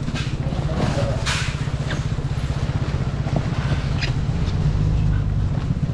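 A motor running steadily with a low, even rumble, with a few short rustles and clatters over it.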